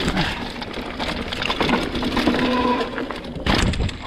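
Mountain bike rolling fast over a rough dirt trail: tyres on dirt with the chain and frame rattling, and a heavy thump about three and a half seconds in.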